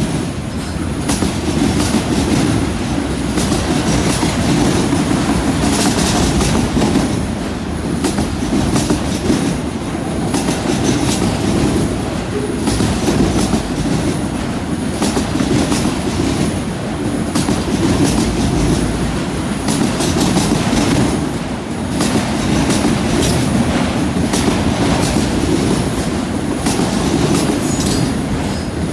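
Freight train rolling past: a steady, loud rumble of wheels on rail with repeated clacks as the wheels cross rail joints and a junction switch, and a faint high wheel squeal.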